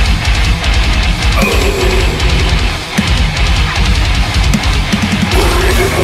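Heavy metal song with distorted electric guitars over fast drumming and rapid kick-drum strikes. The drums break off briefly about three seconds in.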